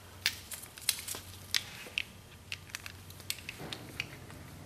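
Handling noise: about a dozen scattered light clicks and crackles as a torque wrench and a socket adapter are picked up and fitted together, over a faint steady low hum.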